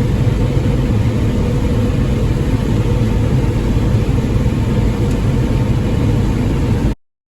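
Combine harvester running steadily while harvesting corn: a loud, even engine and machine rumble that cuts off suddenly near the end.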